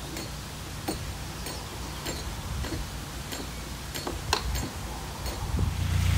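Canal lock paddle gear being wound up with a windlass: the pawl clicks over the rack's teeth, a sharp click every half-second to second, one louder about four seconds in. A louder steady rushing noise rises near the end.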